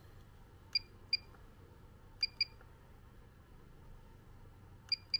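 Three pairs of short, sharp clicks, each pair like a small button pressed and released, from the buttons of a DJI RC Pro drone controller being worked by hand.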